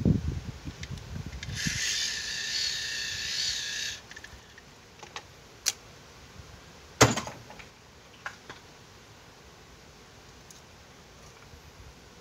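Handling noises around a model airplane engine that is not running: low knocks, a hiss lasting a couple of seconds early on, then a few sharp clicks, the loudest about seven seconds in.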